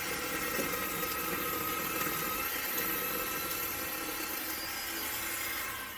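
Craftsman 10-inch 20-volt cordless electric chainsaw running at full speed and cutting through green wood: a steady motor whine over the chain's rasp, stopping near the end.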